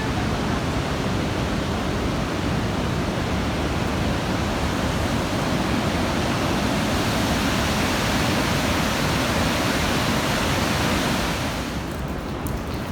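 Coquihalla River rushing through a narrow section of its gorge: a loud, steady wash of whitewater noise that falls off somewhat near the end.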